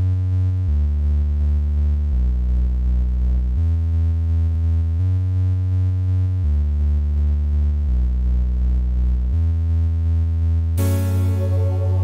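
Synthwave music intro: sustained synthesizer chords over a deep synth bass, the notes changing about every second and a half. Near the end a cymbal-like hiss comes in and the track fills out.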